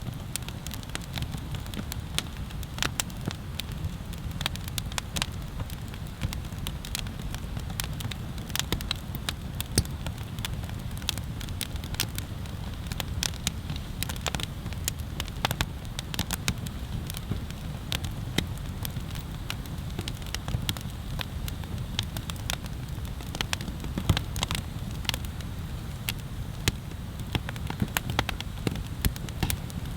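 Wood bonfire crackling: many sharp, irregular pops and snaps over a steady low rumble.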